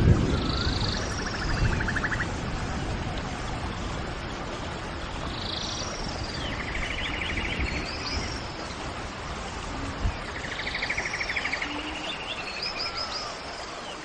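Seabirds calling: short harsh squawks and rapid rattling trills, the group of calls coming back about every four to five seconds over a steady hiss. A sharp thump right at the start.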